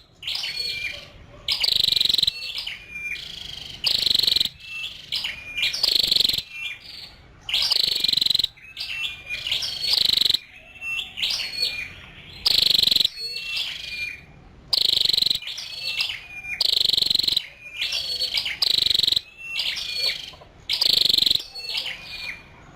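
Female chim sâu đầu đỏ (a small flowerpecker) calling: short bursts of high, sharp chirps, repeated about every one to two seconds.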